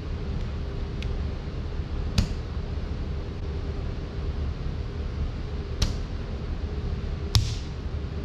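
Pieces of wet clay slapped down one onto another on a wedging table, stacking layers to work the air pockets out. Three sharp slaps a few seconds apart, the last the loudest, over a steady low hum.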